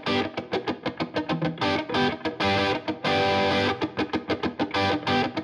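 Intro music: a distorted electric guitar playing a fast, rhythmic part.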